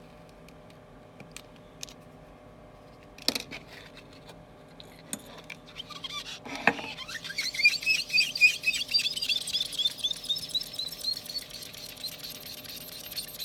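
Melamine sponge rubbed quickly back and forth over an iPhone LCD's glass to clear leftover polariser glue, squeaking sharply with each stroke from about six seconds in. Before it, a few small clicks and a sharp click about three seconds in.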